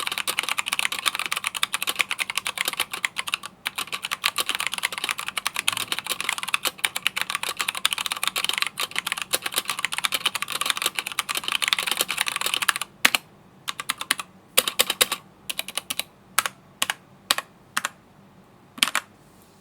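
Typing sound test on a Keychron K2 mechanical keyboard with brown switches and single-shot PBT keycaps: fast, continuous typing for about thirteen seconds, then single keys pressed one at a time, about two a second.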